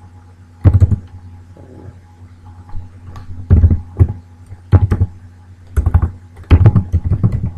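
Computer keyboard typing in short bursts of keystrokes separated by pauses, over a low steady hum.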